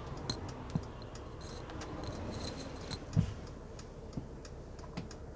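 Inside the cabin of a Mercedes Sprinter 3500XD camper van at highway speed, heard through a phone microphone: steady low road rumble with a faint, persistent whine, and scattered clicks and rattles, with a heavier thump about three seconds in. The whine is still there after the driveshaft and differential were replaced.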